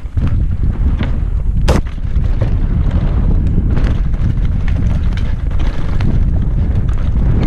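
Wind rumbling on the microphone of a mountain bike on a fast downhill run, with the bike clattering and ticking over rough ground. One sharp, loud knock comes just under two seconds in, as the bike comes off a wooden ramp.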